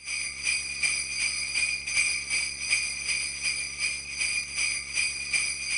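Sleigh bells shaken in a steady rhythm, about three shakes a second, with a bright continuous jingle.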